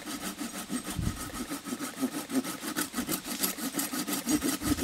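Small Silky Pocketboy folding saw rasping through a green sugar maple limb in short, rapid back-and-forth strokes, cutting a slot, with a couple of dull low thumps.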